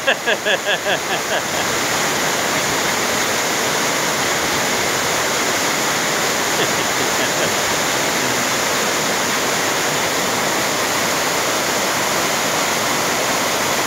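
Waterfall rushing with a steady, dense roar of falling water. A person's voice comes in short rapid pulses in the first second and a half.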